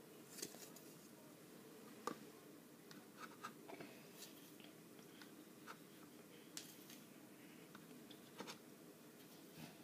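Near silence, with faint scattered clicks and scratchy ticks of a paintbrush working on paper.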